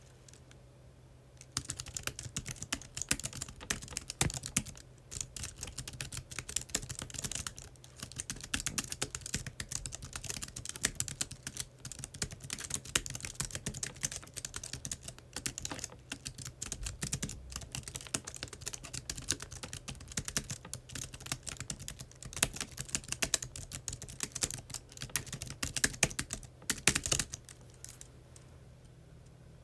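Computer keyboard typing: fast, continuous key clicks and keystrokes, starting about a second and a half in and stopping shortly before the end, with a faint steady low hum beneath.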